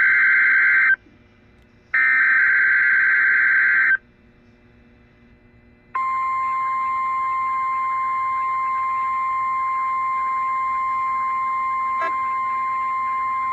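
NOAA Weather Radio weekly test: the end of one SAME header data burst, then a second buzzing data burst of about two seconds. About six seconds in, the steady 1050 Hz warning alarm tone starts and holds.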